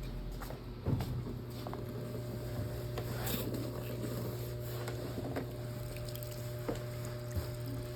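Brastemp Clean washing machine running a delicate wash cycle: a steady motor hum under water and a wet linen curtain sloshing and splashing in the drum, with a louder splash about a second in.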